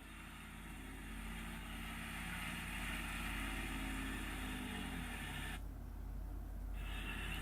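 Diesel engine of heavy earthmoving machinery running steadily, growing louder over the first few seconds, with the engine pitch sliding down about four to five seconds in.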